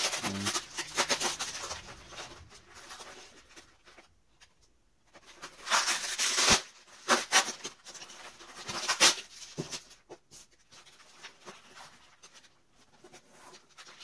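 Foam packing wrap being handled and clear plastic tape being peeled off it, in irregular rustling and crinkling, with the loudest bursts about six and nine seconds in.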